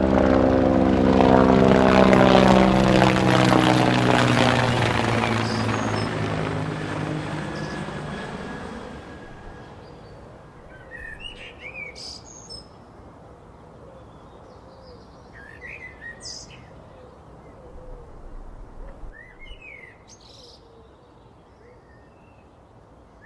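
A propeller aircraft's engine drone, loud at first, passes and fades away over about the first nine seconds. Then small birds chirp a few times over a faint background.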